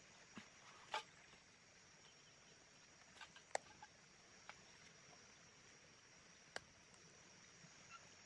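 Near silence: a faint steady hiss broken by a handful of short, sharp clicks and snaps, the loudest about three and a half seconds in.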